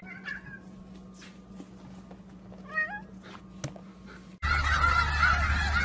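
A house cat gives a short, rising meow about three seconds in, with a few faint knocks around it. Near the end the sound cuts to a louder steady low rumble with faint geese calls.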